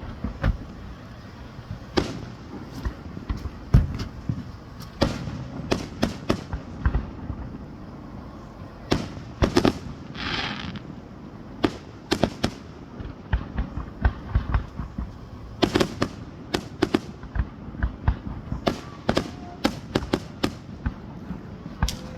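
Fireworks display: aerial shells going off in a long run of sharp booms at irregular spacing, sometimes several in quick succession, with a brief hiss about ten seconds in.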